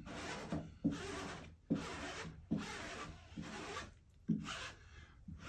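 Felt-edged squeegee rubbing over a wet vinyl decal in repeated strokes, about one every 0.8 seconds, working the soapy application liquid out from under it.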